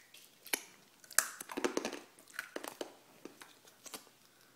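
Close, irregular mouth clicks and crackles of someone sucking and biting on a hard-candy bacon lollipop, with handling rustles as the camera is moved near the end.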